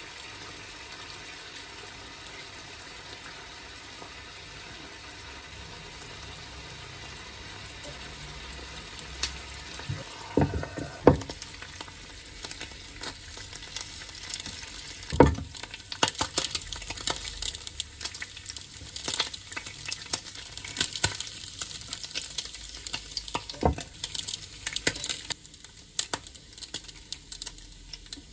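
Slices of ham frying in oil in a square pan: a steady sizzle, then from about nine seconds in denser crackling and popping of hot oil, with a few loud knocks against the pan.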